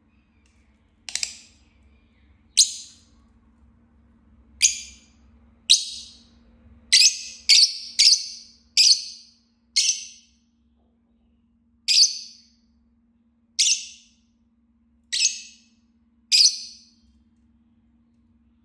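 Fischer's lovebird giving a series of about thirteen short, shrill calls, one to two seconds apart. Each call starts sharply and trails off.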